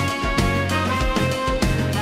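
Large jazz-funk ensemble playing a funk groove, with a horn section over bass and drums keeping a steady beat.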